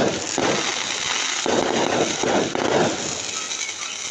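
Fireworks crackling and popping continuously, in uneven waves of dense noise.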